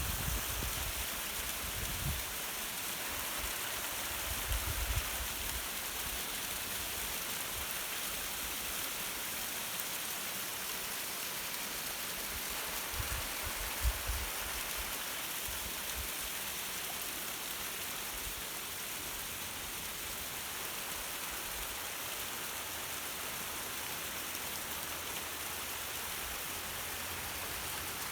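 Small seasonal waterfall fed by snowmelt runoff: a steady rushing hiss of falling water, with a few brief low thumps in the first half.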